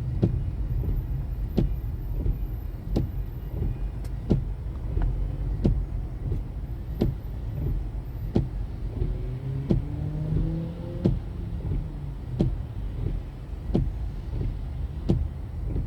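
Car driving, with a steady low road and engine rumble and a sharp tick repeating about every 0.7 seconds. Between about 9 and 11 seconds in, a pitched engine tone rises.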